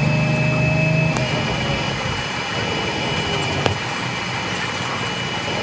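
Bus engine and drivetrain heard from inside the moving bus, with a steady high whine; the deep engine hum drops away about a second in, as if the driver eases off. A single sharp click about two-thirds of the way through.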